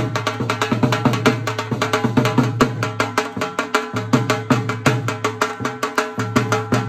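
Dhol drummed in rapid, even strokes, several a second, over loud dance music with a steady bass line.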